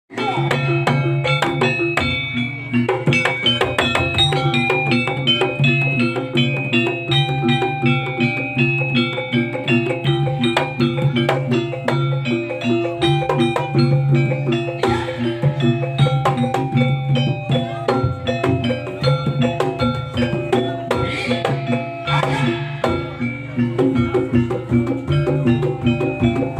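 Javanese jaranan gamelan music: gongs and metallophones struck in a fast, repeating pattern over drumming, starting abruptly.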